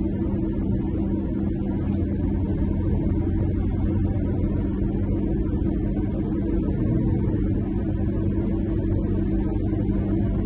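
Motorhome's engine and tyre noise heard from inside the cab: a steady low drone while cruising at an even speed.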